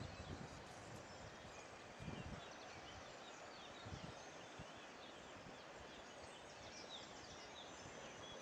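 Faint outdoor ambience: a steady hiss with small birds chirping throughout, and a few low thumps on the microphone, about two and four seconds in.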